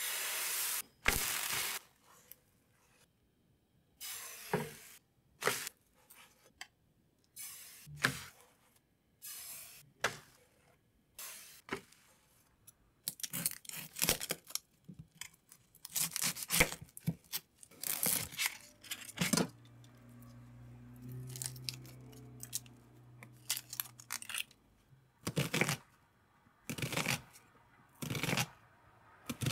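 Kitchen prep sounds in a string of separate scrapes and taps: batter ladled into a frying pan, a knife spreading butter over a stack of thin pancakes, and a knife chopping onion on a wooden board. A low hum runs for a few seconds past the middle.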